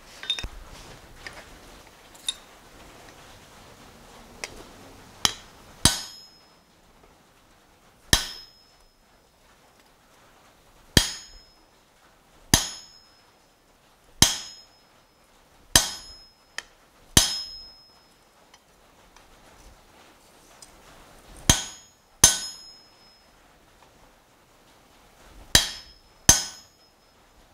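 Hammer blows on a handled hot-cut chisel, cutting a red-hot steel bar all the way through on the anvil's cutting table. A few faint taps come first, then about a dozen sharp, ringing strikes, one to three seconds apart.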